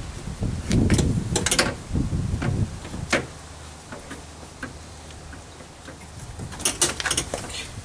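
Hands working inside a 2004 Ford Explorer's front door, behind the peeled-back panel, fitting the door-lock rod to the back of the interior handle: scattered clicks and rustling of plastic and metal parts, with a quick cluster of sharp clicks near the end.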